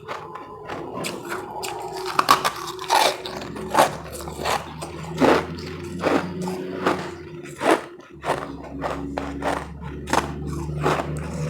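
Ice being bitten and chewed close to the microphone, with irregular sharp crunches, over a steady low hum.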